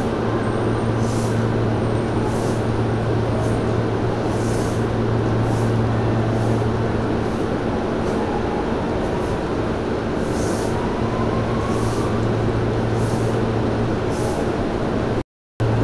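Steady hum and rumble of a Hanshin 5500 series electric train, heard from the front of the train, with a faint rising whine about ten seconds in. The sound cuts out briefly near the end.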